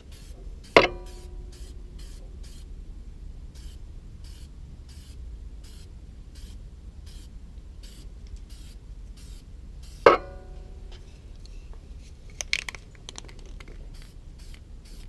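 Aerosol spray can spraying paint in short, repeated hisses, with two sharp knocks that ring briefly, about a second in and near ten seconds in.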